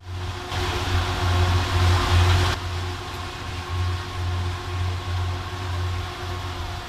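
An engine running steadily with a low hum and a few steady tones above it. A rushing hiss comes in from about half a second in and stops abruptly about two and a half seconds in.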